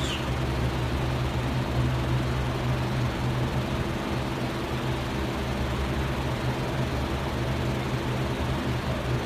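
A steady, unchanging machine hum, like a motor or engine running, with a constant low drone.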